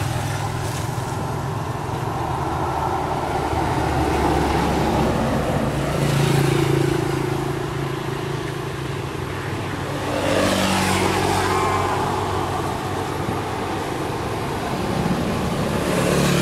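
Motor vehicles running on a road, with engines swelling louder three times as vehicles pass.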